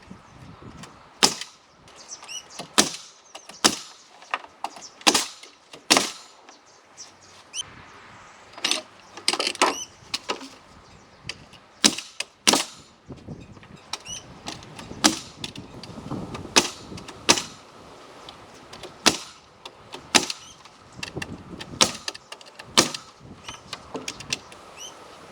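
Irregular series of sharp wooden knocks and clatters, roughly one every second and varying in loudness, some with a short ringing tail, from work on a spruce firewood shed.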